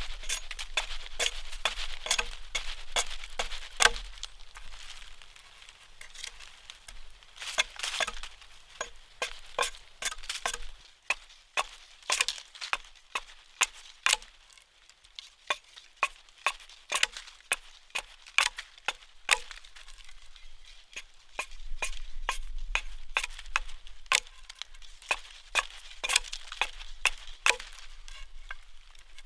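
Small hatchet chopping into a green sapling pole to carve its end to a point: a long series of sharp chops, about two to three a second, with a few short pauses.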